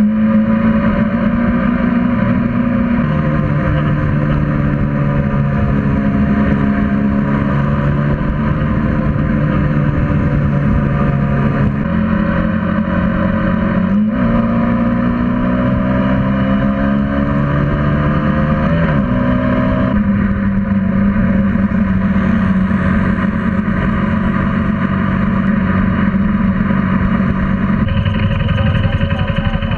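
Motorcycle engine and exhaust heard from a camera mounted on the moving bike, with wind noise. The engine holds a steady pitch at road speed, drops a few seconds in, climbs steadily through the middle as the bike accelerates, then drops again.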